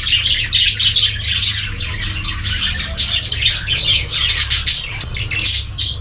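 A flock of budgerigars chattering, with many overlapping chirps and squawks and no pause, over a steady low hum.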